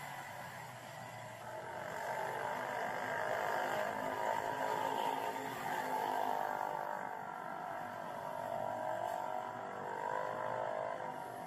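Street traffic: motorbike and car engines passing, swelling and fading as they go by.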